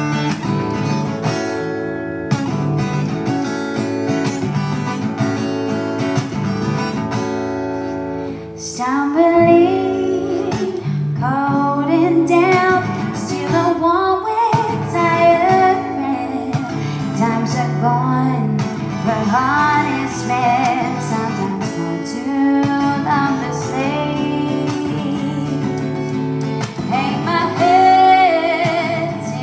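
Live acoustic guitar strummed alone as an introduction, then a singer comes in about nine seconds in and sings over the strumming.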